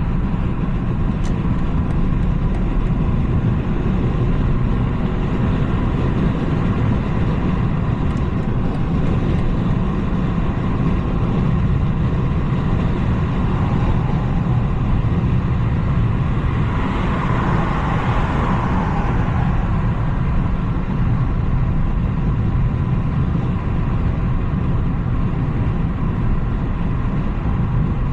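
BMW 330i's turbocharged four-cylinder and tyre rumble as the car drives along steadily, with a brief swell of hiss about seventeen seconds in.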